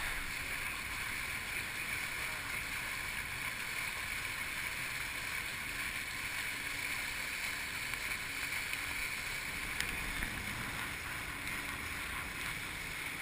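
Steady rushing noise of river water with wind on the microphone, unbroken and even throughout.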